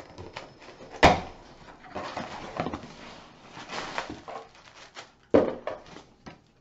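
Cardboard packaging being handled and opened: a sharp knock about a second in, then scratchy rustling and scraping, and another thud about five seconds in.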